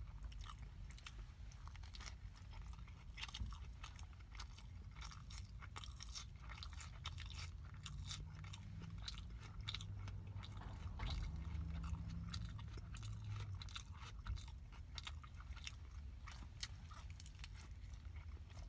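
A person chewing a hamburger close to the microphone: a run of irregular wet mouth clicks and smacks as the bun and patty are chewed, with another bite taken near the end.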